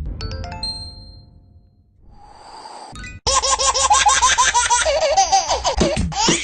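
Novelty ringtone: a few chime notes ring out and fade, a soft swell rises, then about three seconds in a baby's quick, loud run of laughter starts.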